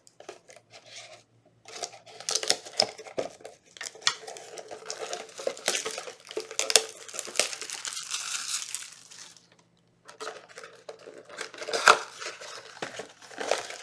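Packaging of a small trading-card box being torn open and handled: crinkling and tearing mixed with sharp little clicks and taps, with a brief pause about two-thirds of the way through.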